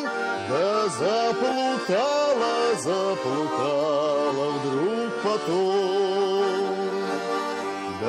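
Russian garmon and bayan accordions playing a folk tune together while a man sings over them in repeated swooping rises and falls of pitch.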